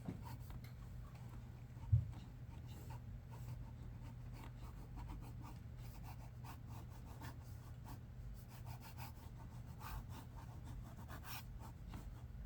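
Pencil scratching on paper in short, irregular sketching strokes, over a steady low hum, with one low thump about two seconds in.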